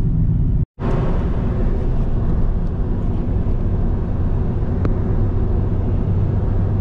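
Steady road and engine noise inside a moving car's cabin, low and continuous, with a brief dropout to silence less than a second in.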